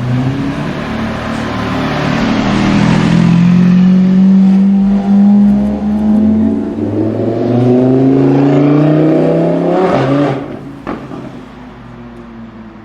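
Audi R8 V10 Plus's 5.2-litre V10 with a Capristo exhaust accelerating hard: the engine note rises, dips briefly about five seconds in as it shifts up, and rises again. About ten seconds in the note breaks off with a couple of sharp cracks from the exhaust, and the sound falls away.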